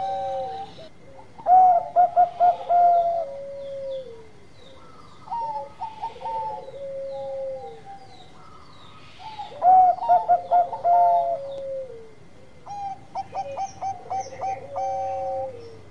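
Bangkok-type zebra dove (perkutut) cooing its song: about four phrases, each a quick run of short staccato coos ending in a longer falling note. Faint high chirps from other small birds sit in the background.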